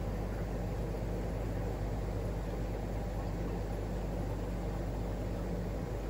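Steady low hum under an even hiss, unchanging throughout: fishroom equipment running.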